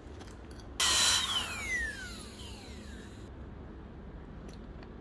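High-speed dental handpiece run in one short burst with a loud hiss. Its whine then falls steadily in pitch as the bur spins down over about two seconds. It is trimming a high contact point on a tooth during occlusal adjustment.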